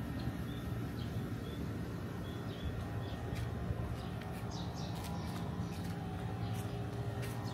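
Outdoor ambience: a steady low rumble, with a few faint, short bird chirps in the first few seconds and scattered light clicks in the second half.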